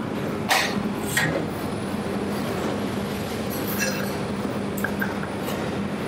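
Steady kitchen background noise with a low hum underneath. Two short hissing noises come about half a second and a second in, and a few faint ticks follow later.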